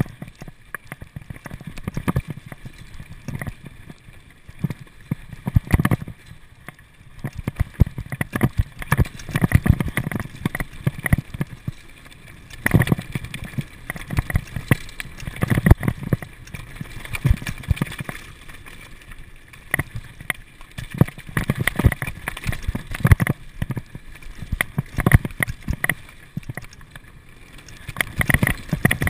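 Norco downhill mountain bike rattling and clattering over a rough, rocky trail at speed, with irregular knocks from rocks and bumps and surging wind rumble on the microphone.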